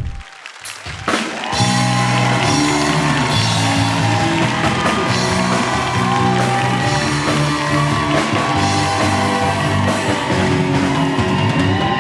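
Upbeat rock-style theme music with electric guitar and drum kit, kicking in after a short hit and a brief pause near the start.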